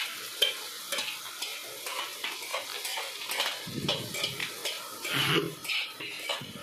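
Metal spatula stirring chicken pieces in spiced masala in a frying pan, with repeated short scrapes and taps against the pan over a sizzle of frying: the chicken is being dry-fried in its spices.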